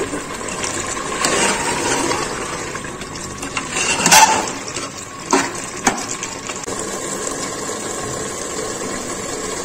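A ladle stirring thick, bubbling chana curry in an aluminium pressure-cooker pot, scraping through the chickpeas and knocking against the pot's side a few times, over a steady hiss.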